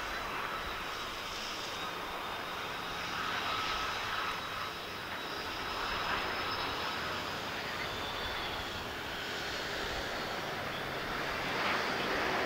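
Airbus A330 airliner on final approach and landing: its turbofan engines give a steady hiss with a faint high whine, growing louder near the end as it touches down on the wet runway.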